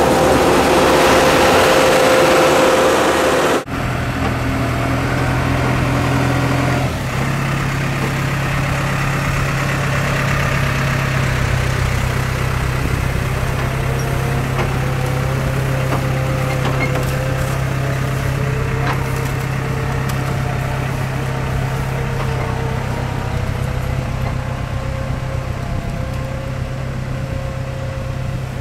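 Side-mount blueberry harvester running: a steady engine drone. About four seconds in the sound changes abruptly from a denser, noisier mix to a steadier, deeper drone.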